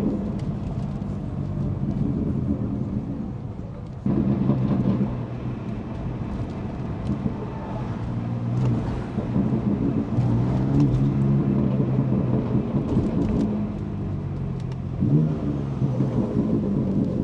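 The Stage 2 tuned BMW F80 M3's twin-turbo inline-six running on the move, its note rising and falling with the throttle. It dies away over the first few seconds, comes back suddenly about four seconds in, then climbs and is at its loudest in the second half.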